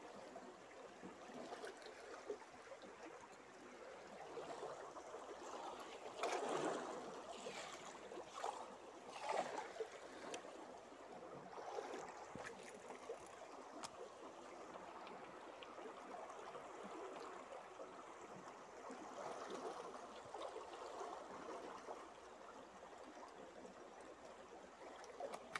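Fast-flowing muddy river current rushing and swirling, a steady water noise with a few brief louder swells about a quarter and a third of the way in.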